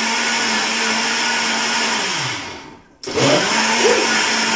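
Countertop jug blender puréeing a soup base: the motor runs steadily, winds down a little over two seconds in, and starts up again about three seconds in.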